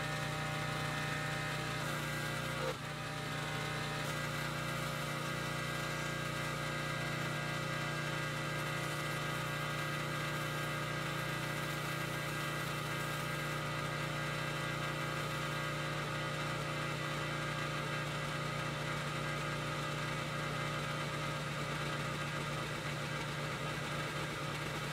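Gas engine of a Champion pressure washer running steadily, a constant mechanical hum with a brief clunk about three seconds in.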